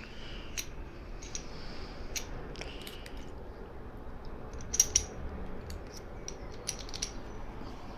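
Metal clicks and scrapes of a picking tool working in the keyway of a hardened steel wheel-clamp shutter lock held in the hands. They come as scattered ticks, with the loudest cluster about five seconds in.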